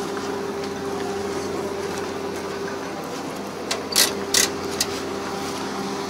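A farm machine's engine running steadily at a constant pitch, with a few sharp clicks or knocks about four seconds in.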